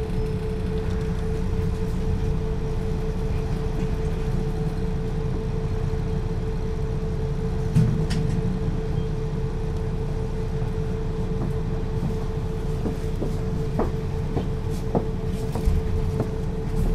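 MAN NL 223 city bus, six-cylinder diesel, running steadily: a low, even rumble with a steady whine over it. A few short clicks and knocks come through, most of them in the last few seconds.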